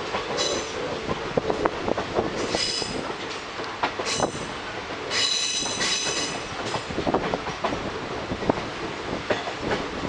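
Train running, heard from an open doorway of a carriage: the wheels click and clack over the rail joints, with a high-pitched wheel squeal that comes and goes four times in the first seven seconds.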